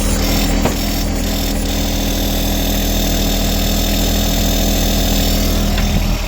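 John Deere tractor engine running steadily at idle, with a few short knocks in the first two seconds.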